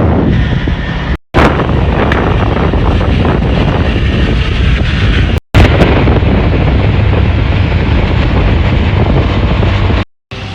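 Heavy wind buffeting the microphone over the low rumble of a moving vehicle, in several short clips joined with abrupt cuts.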